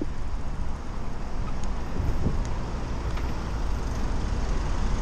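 Steady road traffic noise: cars driving past close by.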